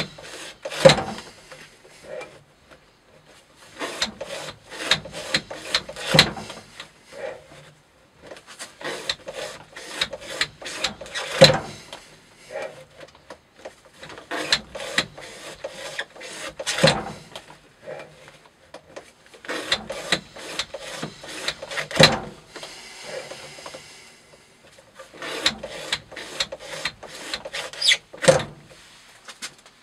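A Maxamet-steel Spyderco Para Military 2 knife blade in a rope-cutting test rig, slicing through natural-fibre rope again and again. Each cut is a run of crackling ticks as the fibres part, ending in a sharp snap; there are about six cuts, roughly five seconds apart. This is a wear-resistance test of the edge.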